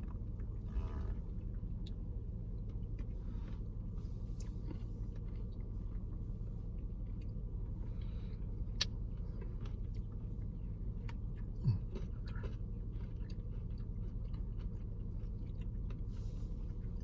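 Quiet eating sounds, with faint chewing and a few soft spoon clicks from a thick ice-cream Blizzard being tasted, over a steady low rumble.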